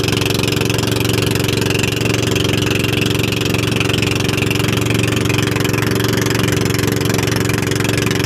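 Engine of a motorized outrigger boat running steadily at cruising speed, its firing pulses even and unchanging, over a steady hiss of water rushing past the hull.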